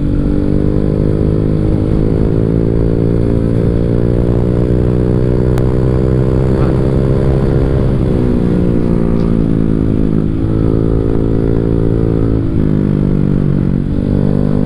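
Honda Vario 150 scooter's single-cylinder four-stroke engine running through a Black Devil R2 Seca long aftermarket exhaust while riding. The engine note holds steady for about eight seconds, then falls away and picks up again a few times as the throttle is eased and reopened.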